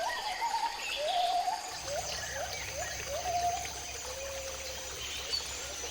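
Rainforest wildlife chorus: one animal gives a run of short rising calls, about two a second, among higher chirps and a steady high insect drone. A low hum joins about two seconds in.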